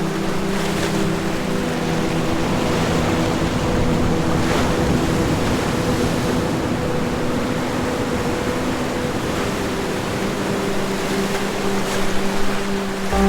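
Ocean surf washing in a steady rush that swells a little in the middle and again near the end. A held ambient synth chord sustains beneath it.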